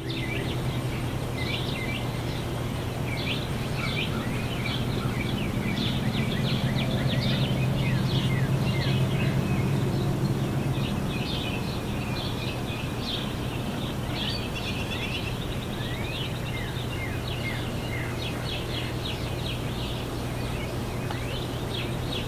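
Many birds chirping at once, a dense chorus of short calls, many of them falling in pitch, over a steady low hum.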